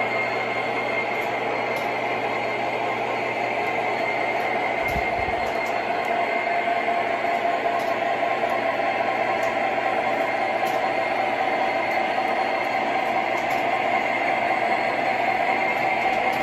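O scale model trains running on the layout's tracks: a steady whir of electric motors and wheels on metal rail. It grows slightly louder near the end as the Santa Fe diesel locomotive comes closer.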